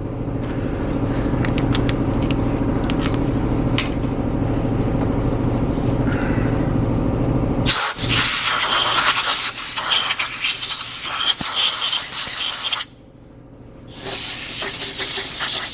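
Compressed-air blow gun hissing in two long blasts with a short pause between them, blowing machining shavings off a cylinder head. A steady low machine hum comes before it.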